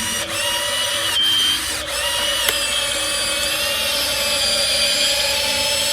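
Small electric motor whining steadily, with a few short shifts in pitch.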